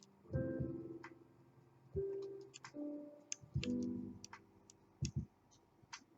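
Soft background music with a few sustained, piano-like notes that each strike and fade over about a second. Throughout, faint light metallic ticks and clicks come from lock picks working the pins of a KABA Gemini dimple lock.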